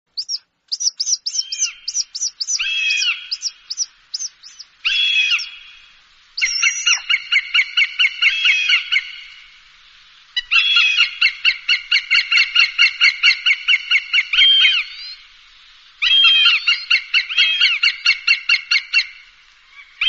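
Hawk calls: runs of rapid, evenly repeated sharp chattering notes, about five a second, each run lasting a few seconds with short pauses between. This is a recorded call played to scare other birds away.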